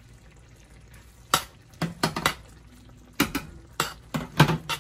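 A cooking utensil stirring chicken pieces in broth in a pan, knocking and scraping against the pan about ten times at an irregular pace, starting a little over a second in.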